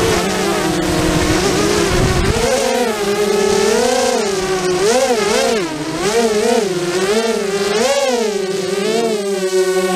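FPV racing quadcopter's brushless motors and propellers whining, heard from the camera on the quad. The pitch swoops up and down again and again with the throttle. A rough low rumble runs under it for the first two seconds or so.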